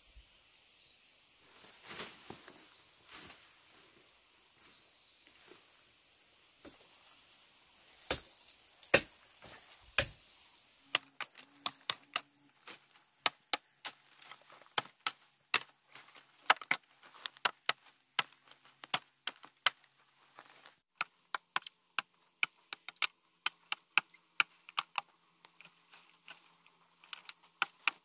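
Bamboo being chopped with a blade: sharp woody strikes, at first a few spaced apart, then in a quick steady run of two or three a second. A steady high insect buzz fills the first part and then drops away.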